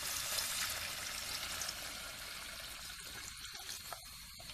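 Hot water poured in a stream into an aluminium pot of chicken and onion frying in fat. The sound slowly fades and thins out toward the end.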